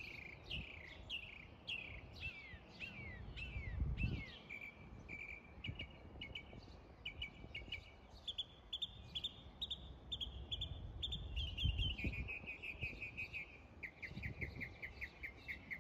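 A songbird singing a long, varied song: a run of quick down-slurred chirps, then repeated short notes, then fast trills near the end. A low background rumble runs underneath.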